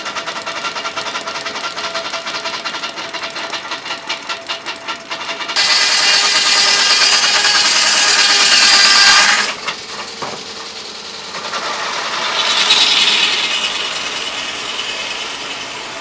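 Steam-engine-driven circular sawmill running: a fast, even mechanical rattle for the first five seconds or so, then the blade cutting through a log loudly for about four seconds before stopping sharply. After that it is quieter, with another cut swelling and fading a few seconds before the end.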